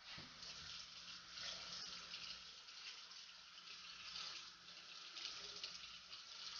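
Kitchen sink tap running steadily while a freshly cleaned blue crab is rinsed under it.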